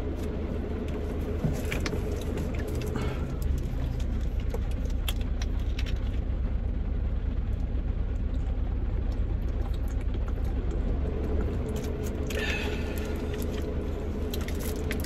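Vehicle engine idling, a steady low rumble heard from inside the cab. A few small clicks and a short rustle near the end come over it.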